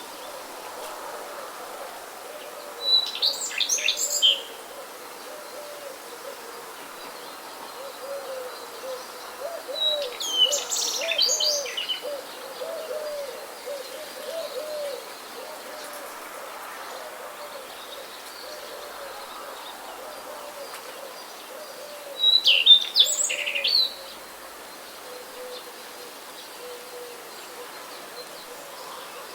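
Nature ambience of steady wind and rain hiss, with a songbird singing three short bursts of high chirps, about 3, 10 and 22 seconds in. Under it runs a long series of low, repeated hooting or cooing bird calls, which fade after about the middle.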